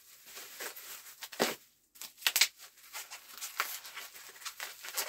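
Packaging being unwrapped by hand: irregular rustles, crinkles and short tearing sounds of plastic wrap and tape.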